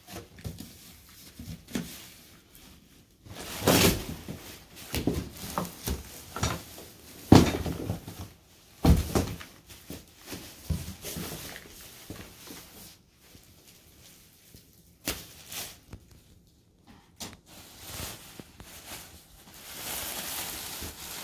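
Handling noise as a heavy, plastic-wrapped adjustable bed base is tipped up and pulled out of its cardboard box: several loud knocks and thuds in the first half, cardboard scraping, and plastic wrap rustling, longest near the end.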